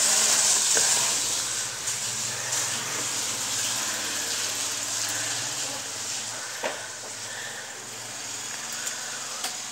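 Steady high hiss with a low hum under it, and a few faint clicks, the clearest about two-thirds of the way through.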